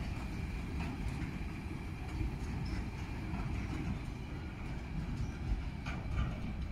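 Freight train of log-loaded timber wagons rolling past: a steady low rumble of wheels on rails, with a thin steady high tone and a few faint clicks.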